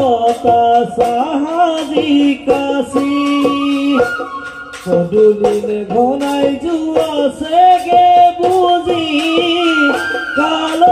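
Live Assamese Bihu music: a male voice singing over dhol drums beating a steady rhythm, with a bamboo flute melody.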